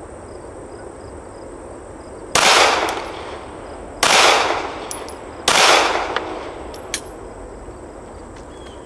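Three pistol shots from a Glock, about a second and a half apart, each echoing off the range berm, followed by a faint click about a second and a half after the last shot.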